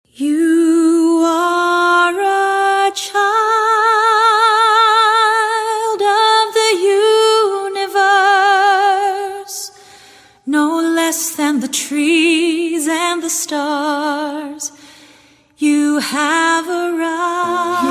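A female singer's solo voice, unaccompanied, holding long notes with wide vibrato and sliding between pitches, with two brief pauses. Backing instruments come in near the end.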